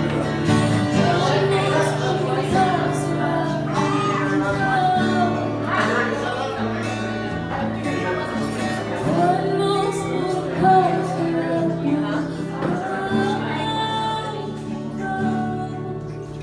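Live cover song: a singer's voice over guitar chords, getting quieter near the end.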